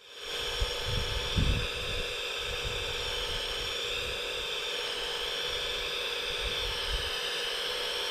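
Steady high electric whine of a scale RC hydraulic excavator's pump motor, wavering slightly in pitch as the machine works, with a few low thumps about one to one and a half seconds in.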